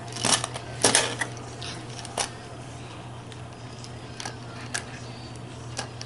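Plastic magnetic building tiles clacking together and against the tabletop as a small child handles and stacks them: several sharp clacks in the first two seconds, then a few fainter taps.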